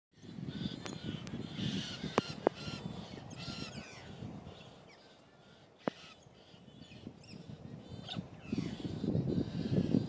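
Galahs giving harsh, screechy calls in short bouts over a low rumble, with three sharp clicks: two about two seconds in and one near six seconds.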